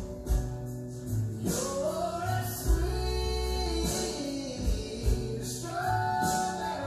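Background music: a song with a held, gliding sung melody over a steady bass line and drum hits.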